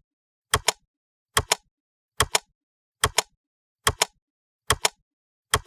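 Sharp double clicks repeating at an even pace, about one pair every 0.8 seconds, with dead silence between them: a ticking sound effect.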